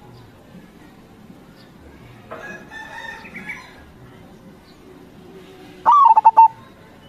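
A zebra dove (perkutut) gives a loud, quick burst of four or five cooing notes near the end. A fainter, drawn-out call from another bird comes about two seconds earlier.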